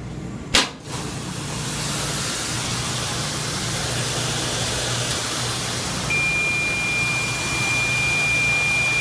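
Dexter commercial washer running with its new door lock solenoid and no buzz: a sharp click about half a second in, then a steady hiss over a low hum, joined by a steady high beep about six seconds in.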